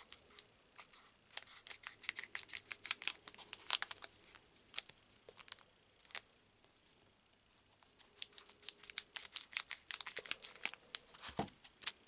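Foil trading-card booster pack wrapper crinkling and tearing in quick, sharp crackles as it is worked open by hand. It pauses for a few seconds midway, then resumes; the pack is stubborn to open.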